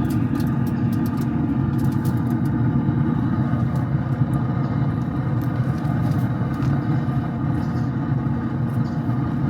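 Traeger pellet grill running with a steady low hum, its fan droning evenly, with scattered light clicks over it.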